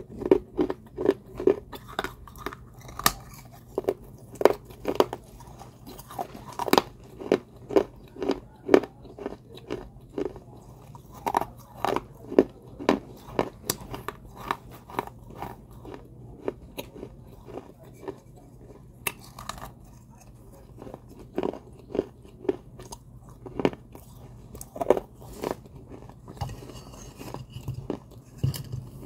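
Close-up crunching and chewing of a clay vase: a person biting off and grinding pieces of the dry earthen clay between the teeth, a run of crisp, brittle crunches about one or two a second, thinning out near the end.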